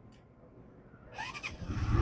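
Street traffic: a vehicle rumble that swells loudly over the last half second. Just before it comes a brief high cry whose pitch glides up and down.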